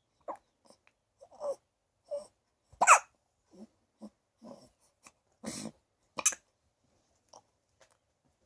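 A newborn baby hiccuping: two sharp hiccups about three seconds apart, with short soft breaths and little vocal sounds in between.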